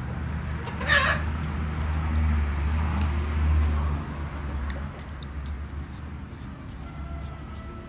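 A chicken gives one short, loud squawk about a second in, over a low rumble that swells for a few seconds and then fades. Light scraping of a metal vegetable peeler on cucumber and potato skin runs underneath.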